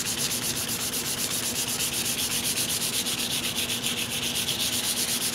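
180-grit wet-or-dry sandpaper rubbed by hand over an oiled walnut rifle stock in quick, even back-and-forth strokes: wet sanding with Tru Oil gunstock finish, the paper cutting the wood and working a slurry of wood dust and oil into the open grain.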